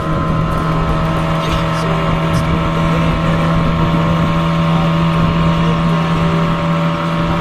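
A motorboat's outboard engine running at a steady speed, an even drone holding one pitch.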